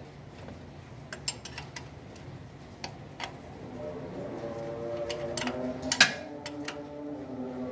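Hand tool clicking and clinking against the engine oil pan bolts as a mechanic works under the car, a scattering of sharp metal ticks with one louder clank about six seconds in.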